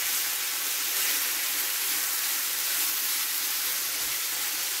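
Minced beef and onion sizzling in a frying pan: a steady hiss.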